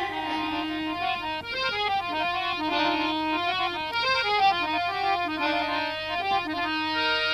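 Harmonium playing a melodic interlude of short, stepping notes, settling into a held chord near the end.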